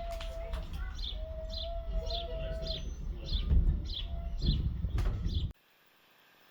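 A bird chirping over and over, short falling chirps about twice a second, over a low outdoor rumble. The sound cuts off suddenly about five and a half seconds in.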